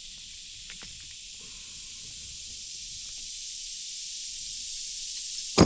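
Steady, high-pitched insect chorus, a continuous shrill buzz with no pauses, with a single sharp knock near the end.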